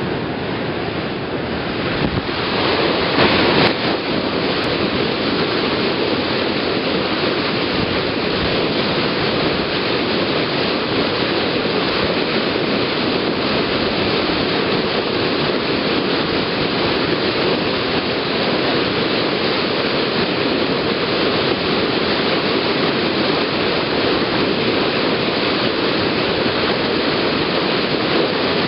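Bow wave of a passenger ferry under way: white water foaming and rushing steadily along the hull, with a briefly louder surge about three seconds in.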